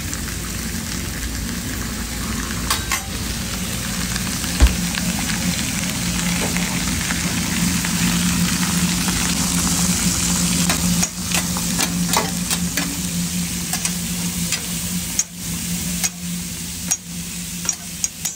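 Masa picadas and steak strips sizzling steadily on a restaurant flat-top griddle, with a low hum underneath. A single sharp knock comes about four seconds in, and a metal spatula scrapes and taps the griddle several times in the second half.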